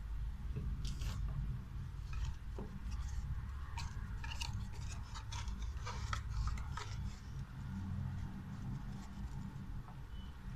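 Unboxing handling noise: scattered light clicks, scrapes and rustles of small items and packaging being handled, over a steady low rumble.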